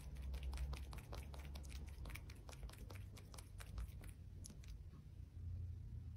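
A sleeping kitten's faint, irregular mouth clicks and smacking, several a second, over a low rumble.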